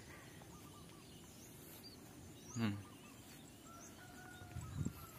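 Faint rural birdsong, small birds chirping over and over. A short loud animal call slides steeply down in pitch about two and a half seconds in, and a longer held call sounds from farther off near the end.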